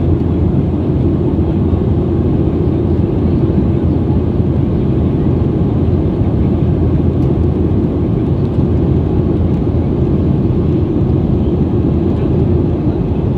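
Passenger jet cabin noise in flight: a steady, low rumble of engines and rushing air that does not change.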